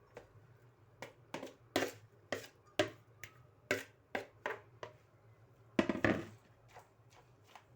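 A utensil knocking and clinking against a bowl as grated potato is scooped into a smaller container. About a dozen sharp knocks come at uneven intervals, the loudest a little before six seconds in.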